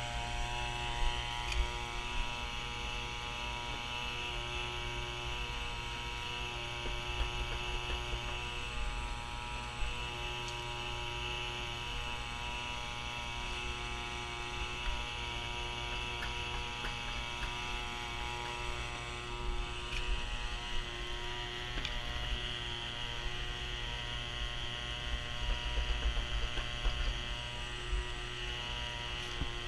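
Steady electric motor hum made of several overlapping tones, some of them pulsing on and off, with irregular low rumbles and a few small knocks.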